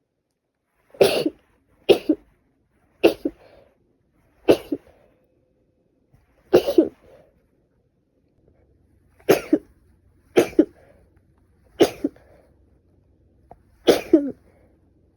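A woman with a bad cold sneezing and coughing: nine short, sharp bursts, one to two seconds apart.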